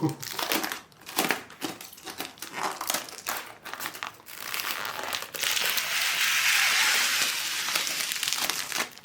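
Packaging crinkling as it is handled: separate crackles for the first few seconds, then a denser, continuous rustle for about three seconds that stops just before the end.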